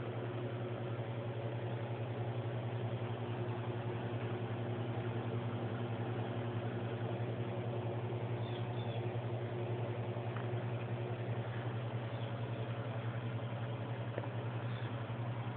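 Steady low mechanical hum at an even level throughout, with a few faint tiny high chirps about halfway through.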